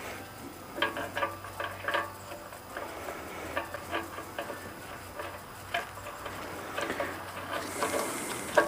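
Light, irregular clicks and clinks of small metal parts being handled, as a brass fuel fitting is threaded on by hand. A faint steady hum sits underneath.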